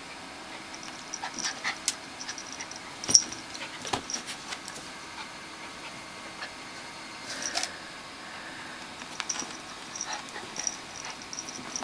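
A calico cat and a Pomeranian scuffling in play, heard as scattered light ticks and taps. There is a sharp knock about three seconds in and a brief hiss-like rush of noise a little past the middle.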